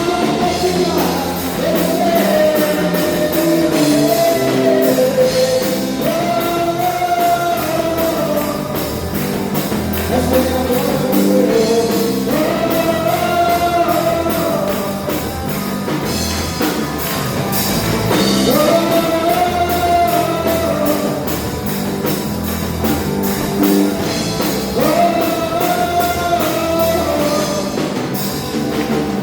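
Contemporary worship music: a voice sings long melodic phrases over a band accompaniment.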